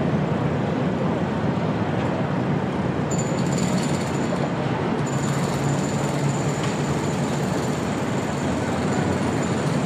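Jackhammer at a demolition site, a steady dense rattle over city noise. A thin high whine comes in about three seconds in.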